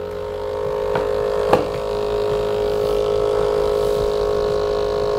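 Built-in thermal printer of a myFirst Camera Insta Wi feeding out a photo print: a steady whirring hum from its paper-feed motor, with two light clicks about a second in.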